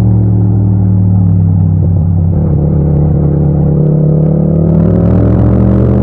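Yamaha MT-07's 689 cc parallel-twin engine running steadily under throttle in fourth gear, heard raw from the rider's seat. The engine note eases slightly in the middle and rises near the end as the bike picks up speed.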